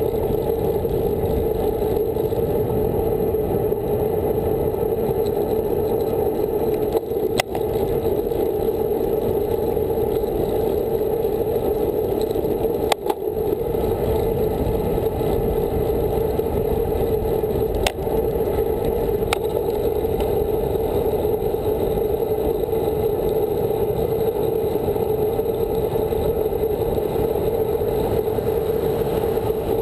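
Steady rushing of wind and tyre noise from a road bike rolling along asphalt, picked up by a handlebar-mounted camera, with a few brief sharp clicks from bumps in the road.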